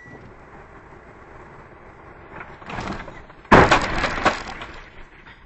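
A car collision heard from the dashcam car: steady road noise, then about three and a half seconds in a sudden loud crash of impact and breaking, with several sharp strikes over about a second before it dies away.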